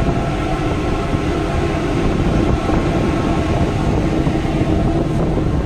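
Steady drone of a ship's engine heard from the open deck while underway, a few low held tones under an even rush of wind and wake water along the hull.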